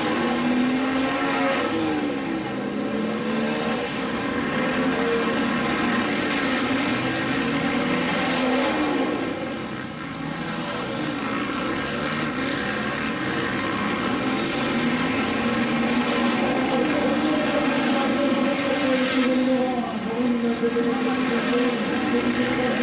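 Several supermoto racing motorcycles revving hard and overlapping, engine pitch rising and falling as the riders accelerate, jump and shift gears. The sound eases briefly about ten seconds in, then builds again.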